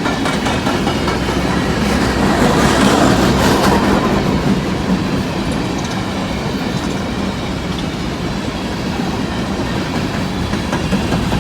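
Long empty BNSF coal train rolling past at speed: a steady rumble and rattle of the empty hopper cars, with wheels clacking over the rail joints.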